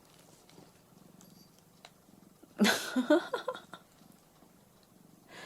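Orange tabby cat purring steadily, close up. About halfway through, a short louder vocal sound of a few pitched notes breaks over the purr.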